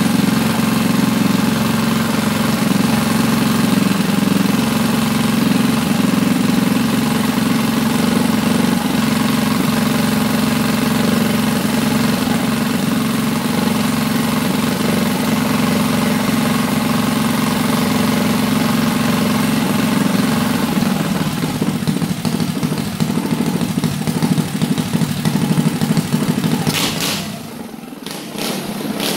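Built Predator 212 single-cylinder go-kart engine, fitted with a hot cam, a 24 mm flat-slide carburetor and an open header pipe, running fast and steady on its cam break-in run. Its speed drops about two-thirds of the way through, and near the end it falls to a much quieter, uneven low idle with a few sharp pops.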